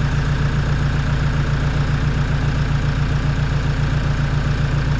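Toyota 1KD-FTV four-cylinder turbo-diesel idling steadily with an even, pulsing beat. It is freshly rebuilt and running on its own after its first start.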